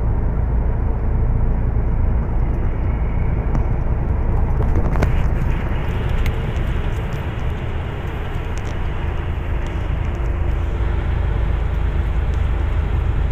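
Truck's engine and road noise heard inside the cab while driving: a steady low rumble with an even rush of tyre and wind noise, a few faint ticks about five seconds in.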